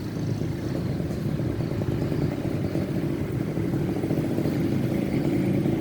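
Motorcycle engine running steadily while riding, with a low, continuous drone.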